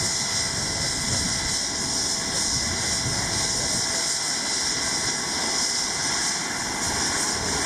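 Eurocopter EC135 police helicopter running on the ground during startup, its turbine engines and turning main rotor making a steady high turbine whine and hiss.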